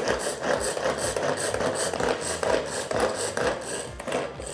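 Pull-cord hand food chopper (Bunbun Chopper) pulled again and again, about two pulls a second, its spinning blades grinding shiso leaves, walnuts, umeboshi and olive oil into a coarse paste.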